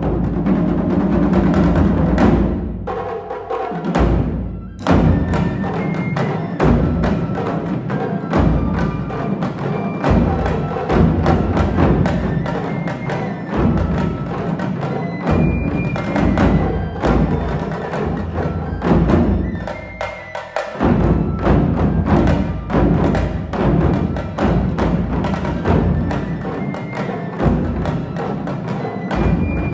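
Japanese taiko drum ensemble playing fast, dense drum strokes. The low drums drop out briefly about four seconds in and again about twenty seconds in, then come back in.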